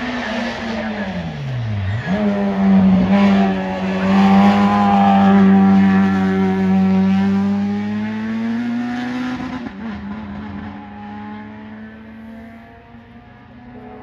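VW Polo hillclimb race car's engine at high revs: a note drops steeply, then a strong steady note climbs slowly as the car passes close. It fades away after about ten seconds.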